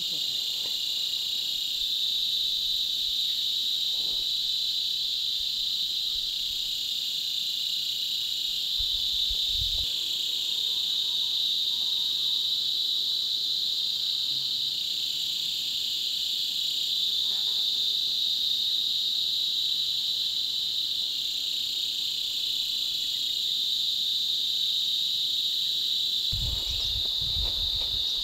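Insects shrilling in a continuous, steady chorus at one high pitch. A brief low rumble comes about nine seconds in and again near the end.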